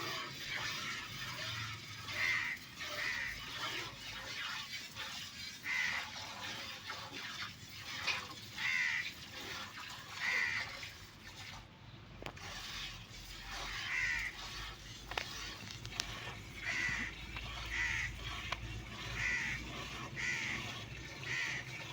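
Birds calling outdoors: short calls repeated every second or two, with irregular gaps.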